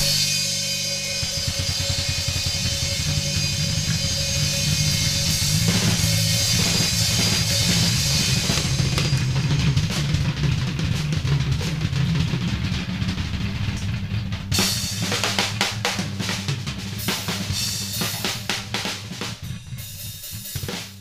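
Drum kit and bass improvising together: a cymbal crash rings out over held low bass notes, then from about two-thirds of the way in the drums break into fast rolls and fills.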